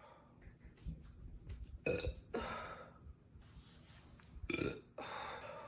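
A woman burping several times in a row, with small clicks between. The loudest burps come about two seconds in and again near the end.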